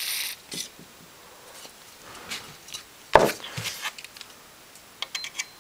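Hands and tools working on a valve radio's metal chassis: a brief hiss of aerosol contact-cleaner spray at the start, then scattered clicks and knocks, the loudest one about three seconds in, and a few light ticks near the end.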